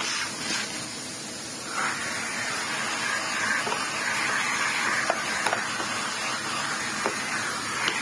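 A steady rushing hiss of air that strengthens about two seconds in and wavers in tone, with a few small clicks: dirt and debris being cleared out of the opened vacuum cleaner's motor compartment.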